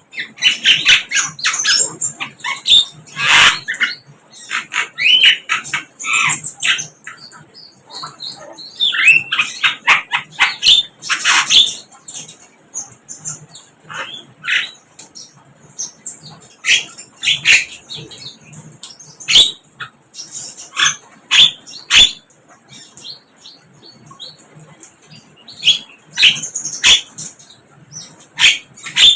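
Sikatan londo, a flycatcher, calling: a long run of short, sharp chirps and ticking notes in irregular clusters, with brief pauses between them.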